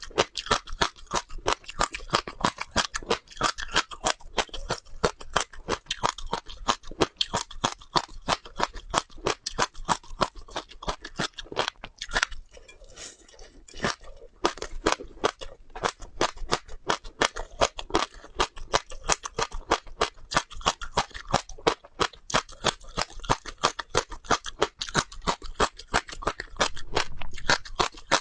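Close-up chewing: seeds being crunched between the teeth in rapid, crisp cracks, several a second, with a brief pause about halfway through.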